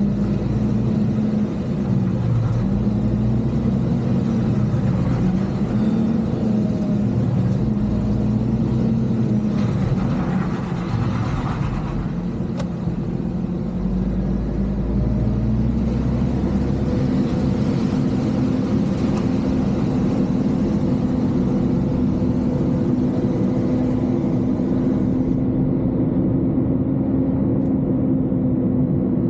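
Heavy diesel engine running under load, its pitch rising and falling repeatedly through the first half, then holding steady.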